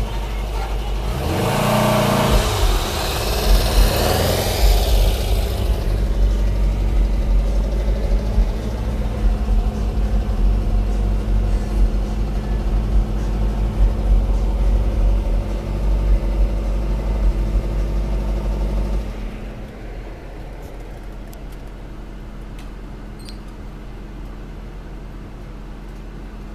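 Air-cooled flat-four engine of a split-window Volkswagen Type 2 Double Cab pickup accelerating away, loudest and rising in pitch a couple of seconds in. Then a steady engine and road rumble heard from inside a following car, which drops at about nineteen seconds to a quieter steady idle hum.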